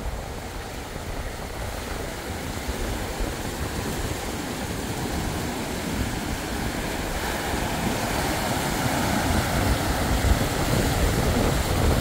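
Storm-driven surf breaking on a beach and rock flats, with wind buffeting the microphone. It grows steadily louder.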